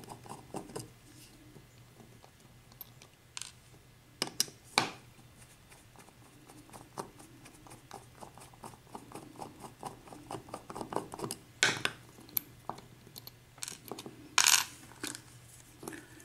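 Small metal clicks and clinks of a Dorma 7-pin mortise lock cylinder being taken apart by hand, with a few louder clacks scattered through.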